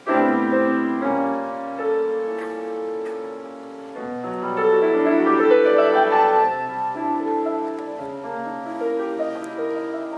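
Kawai grand piano being played: a loud chord struck right at the start, then ringing chords and a melody that swell to a peak about halfway through and ease off again.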